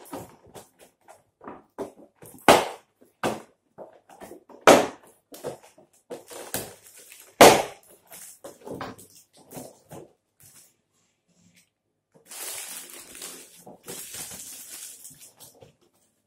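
Stiff clear plastic figure packaging crackling and snapping as it is handled, with a few much louder cracks in the first half. Near the end it gives way to a steadier rustle of plastic wrapping.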